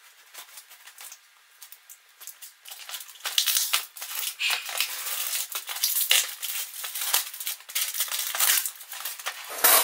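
Gift packaging being opened by hand, crinkling and rustling. It starts with faint scattered clicks, turns into dense crackling and rustling from about three seconds in, and has a brief louder burst near the end.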